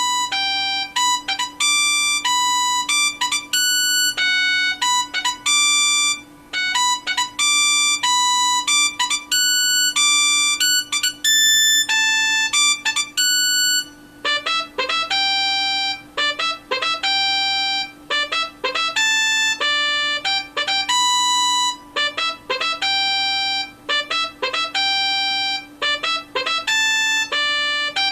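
Nokia 3585 ringtone melody rendered as MIDI on a Sound Blaster Live! card with the Mobile60 soundfont: a single bright electronic voice playing quick short notes with a few held ones, in phrases separated by short breaks. A faint steady hum lies underneath.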